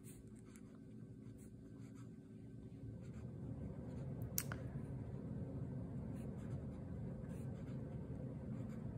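Fountain pen with an extra-fine steel nib writing on a legal-pad sheet: a faint, smooth scratch of strokes that gets a little louder about three seconds in. A single sharp tick comes about halfway through.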